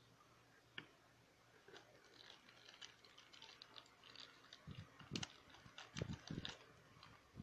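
Faint handling of toy packaging: a run of small crinkles and clicks, with a few soft thumps near the end.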